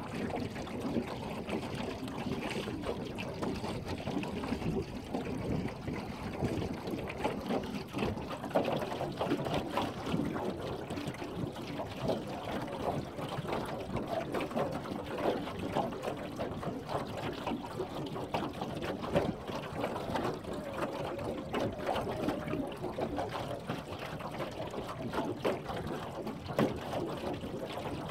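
Water splashing and lapping against the hull of a small boat moving over choppy lake water, an irregular steady wash with many small slaps.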